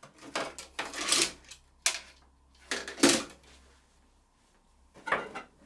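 Knocks, rattles and clicks of hard plastic printer parts being handled, in several separate bursts, with a sharp click about two seconds in and louder knocks near three and five seconds.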